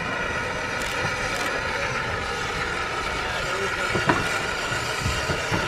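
Narrow-gauge steam tank locomotive drawing near at walking pace, with a steady hiss of steam and a sharp knock about four seconds in, then a few lighter knocks near the end. Voices murmur in the background.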